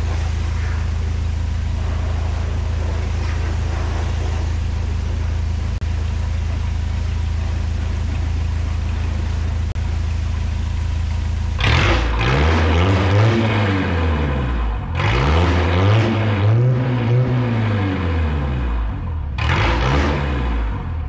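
Toyota Corolla diesel engine idling steadily, then revved up and let back down three times in the second half. Its exhaust flex pipe has been knocked out, so the exhaust is leaking ahead of the muffler.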